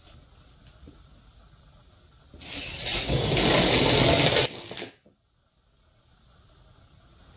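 Two long rows of dominoes toppling one after another: a dense, fast clatter that starts about two seconds in, grows louder, and cuts off sharply just before five seconds.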